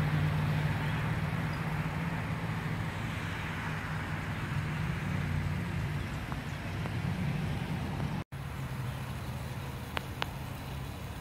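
A motor engine runs with a steady low hum, fading over the first few seconds. The sound briefly drops out about eight seconds in, and two faint clicks follow near the end.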